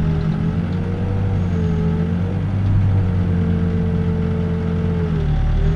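Backhoe diesel engine running under load with its hydraulics working as the bucket digs, a higher whine that dips and rises slightly with the load, heard from inside the cab.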